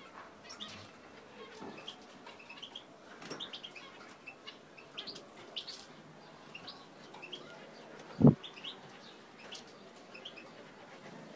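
Zebra finches making short, scattered chirping calls, with one dull thump about eight seconds in, the loudest sound.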